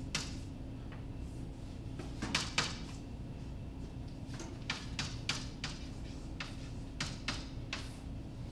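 Chalk on a blackboard while writing: a series of short, sharp, irregular taps and clicks as the strokes land, over a steady low room hum.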